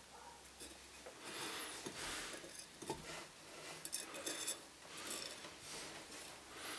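Steel tweezers and a small silver wire scraping and tapping on a porous soldering brick as the wire is set in place, in short, faint, scratchy bursts with a few light clicks.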